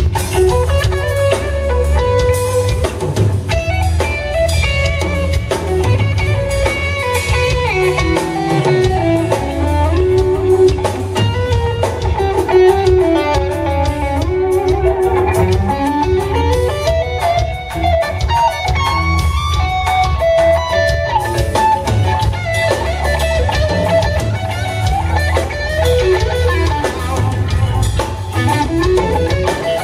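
Live instrumental rock played by a guitar, bass and drums trio: an electric guitar plays a lead melody that slides up and down over bass and drum kit.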